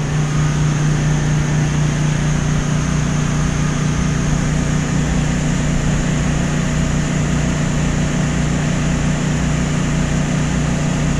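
Steady machine hum with an even hiss of water and air and a low, evenly pulsing throb, from aquarium pumps running on generator power during a power outage.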